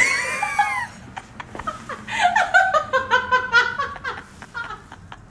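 A person laughing in a quick run of short bursts for about two seconds, starting about two seconds in, with a brief high gliding cry right at the start.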